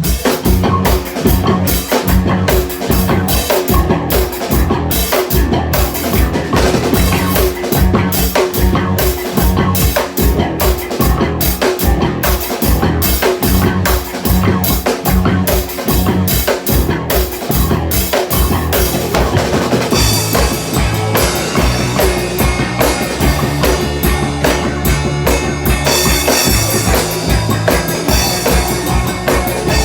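A band playing a rock song with a steady drum-kit beat of kick, snare and rimshots. About two-thirds of the way through the cymbals become busier and the bass holds longer notes.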